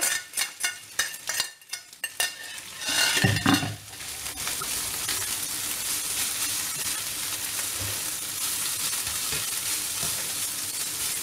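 Mashed carrot scraped off a plate into a frying pan, with a few clinks and scrapes, then, from about four seconds in, a steady sizzle of onion, garlic and carrot frying in oil while a whisk stirs them.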